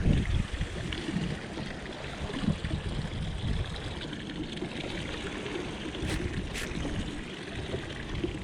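Wind buffeting the microphone and choppy lake water slapping against the boat hull, with irregular low thumps and two short clicks about six seconds in.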